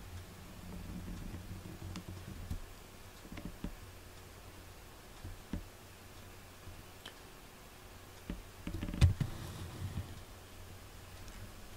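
Quiet room with a low hum, scattered faint clicks and one sharp knock about nine seconds in.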